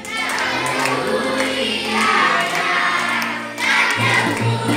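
Music with a group of children singing along; the sound changes abruptly about four seconds in.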